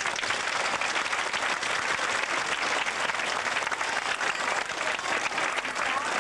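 Audience of schoolchildren and adults applauding, a steady, dense clapping throughout.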